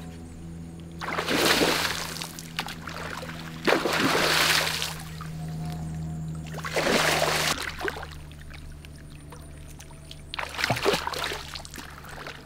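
Water splashing in four loud bursts of about a second each as a hooked peacock bass thrashes at the surface, over background music with long held low notes.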